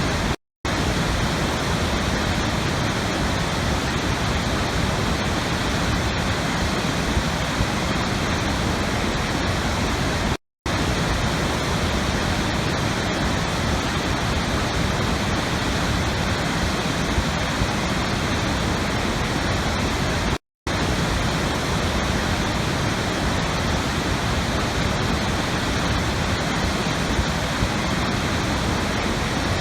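Steady rushing water, an even hiss across all pitches, broken by a brief dead silence three times, about ten seconds apart.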